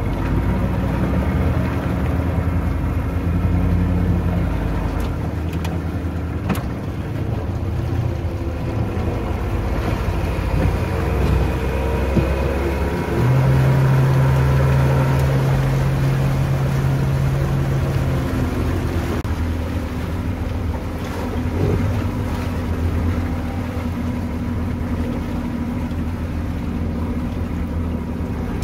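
Pontoon boat's outboard motor running steadily under way, with water rushing along the hull. A louder steady hum sits over it for about five seconds midway.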